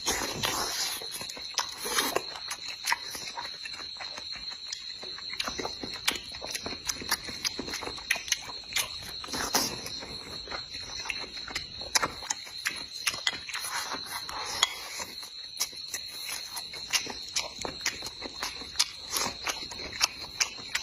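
Close-up eating sounds: chewing and mouth smacks with many small clicks. Behind them a steady high chirring, like crickets, runs on.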